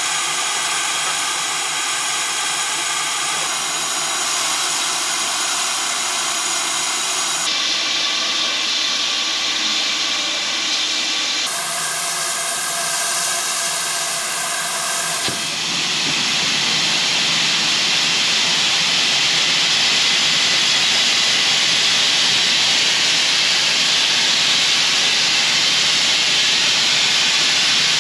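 Steam locomotive hissing steam, with steady tones under the hiss that shift abruptly every few seconds. About halfway through, a louder, even rush of escaping steam takes over and holds steady.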